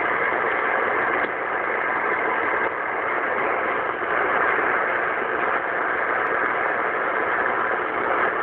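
Shortwave receiver in AM mode tuned to 6925 kHz, its speaker giving a steady, muffled rush of static.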